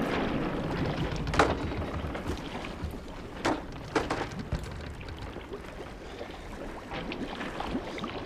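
Water sloshing and lapping around a half-sunk fishing boat, with a few sharp knocks from the boat about a second and a half in and again around three and a half to four seconds.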